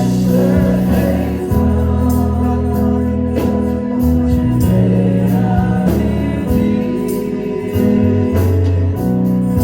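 Slow gospel worship song: a sung vocal line over long held accompaniment chords.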